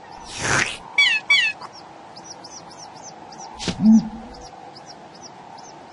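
Animated-cartoon sound effects over a steady background of small birdsong chirps. There is a short whoosh about half a second in, then two quick squeaky calls that fall in pitch, like bird chicks. Near the four-second mark comes a sharp swish and a short low grunt.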